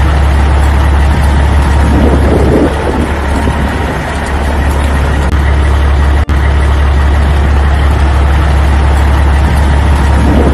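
Vehicle engine running steadily and loudly with a strong low hum. It drops out for a split second about six seconds in.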